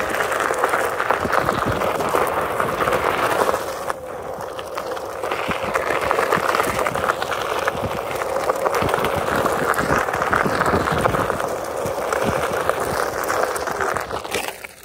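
Onewheel Pint X electric skateboard's tyre rolling over a gravel trail: a steady crunch of stones with many small knocks, fading out near the end.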